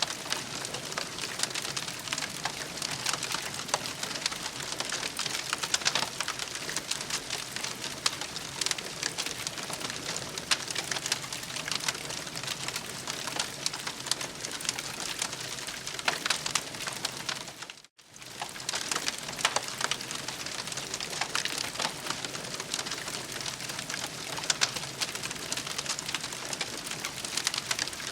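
Campfire crackling steadily: a dense hiss full of small snaps and pops from burning wood. The sound cuts out for a moment about eighteen seconds in, then resumes.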